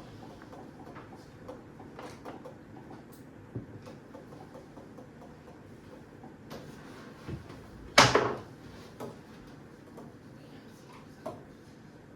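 Scattered small clicks and taps, with one loud sudden thump about eight seconds in.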